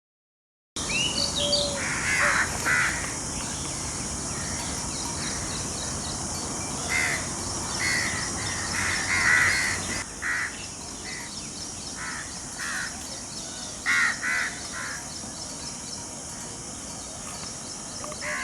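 Peacock calling again and again: short, harsh calls in clusters of two or three, over a steady high hiss.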